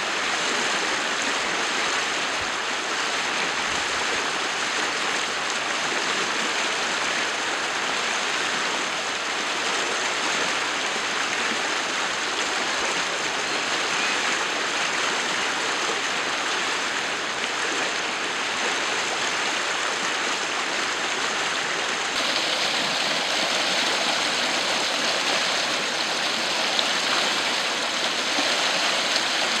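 Rain-swollen muddy floodwater rushing and churning down a stream channel: a steady rush of turbulent water. About twenty-two seconds in the rush turns brighter and more hissing.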